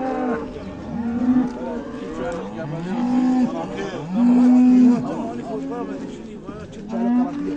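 Cattle mooing: a series of long, low calls from several animals, some overlapping, the longest and loudest about four seconds in.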